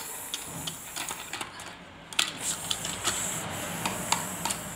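Scattered light clicks and taps of hard plastic toy kitchen pieces, a plastic toy knife knocking against a toy burger and its plastic basket, at irregular intervals with a sharper knock a little after two seconds in.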